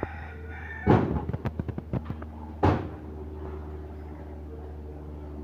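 A sharp knock followed by about a second of quick rattling clicks, then a second knock, like a cupboard or door being handled, over a steady low hum.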